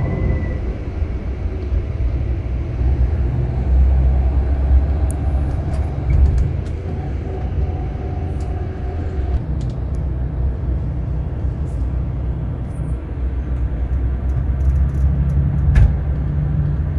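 Scania K-360 bus engine running with a steady low drone that swells and eases in level a few times, and a sharp click near the end.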